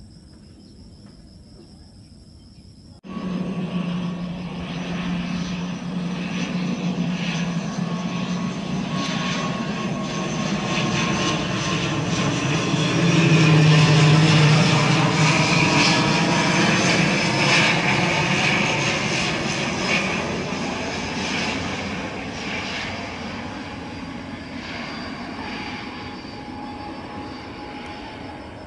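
Faint insect chirping for about three seconds, then suddenly the loud, steady drone of an ATR 72-600's twin turboprop engines and propellers on final approach. It grows louder to a peak about halfway through and then fades as the aircraft passes.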